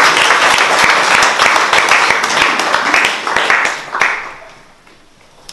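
Small audience clapping steadily, then dying away about four seconds in.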